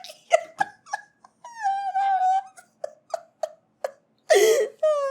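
A string of short high-pitched whimpers and yelps, with a longer held whine about a second and a half in and a louder wavering cry near the end, followed by a falling whine.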